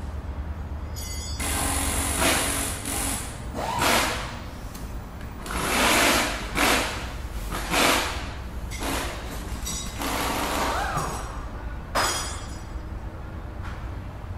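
Garage workshop ambience: a steady low hum under a series of short, noisy bursts of tool work, the loudest about six and eight seconds in.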